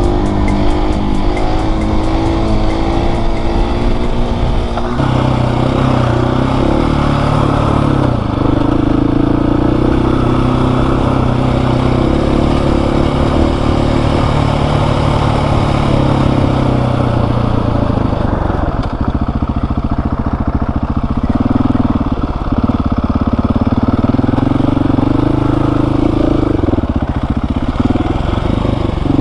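Husqvarna 701 Supermoto's single-cylinder four-stroke engine running under way, its note slowly rising and falling as the throttle is rolled on and off, with a sudden change in the note about five seconds in.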